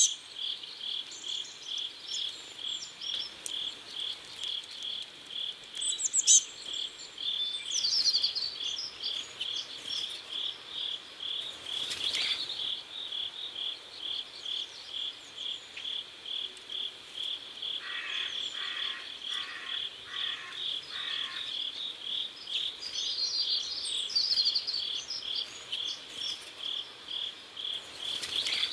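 Crickets chirping in a steady, even rhythm of about two chirps a second, with a few bird calls over them now and then.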